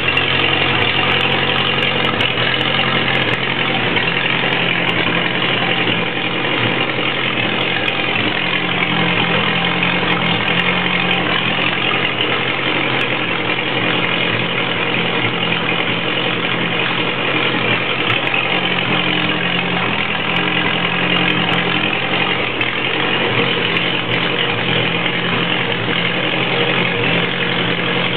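Waukesha engine of a rebuilt Trail Beetle crawler tractor running steadily on its first test, with the reversing gearbox and transmission being tried to turn the bull gears. Its note shifts slightly a couple of times as the drive is worked.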